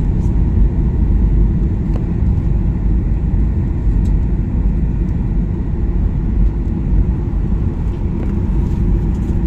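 Steady low rumble of a jet airliner in flight, heard inside the cabin: the drone of engines and rushing air.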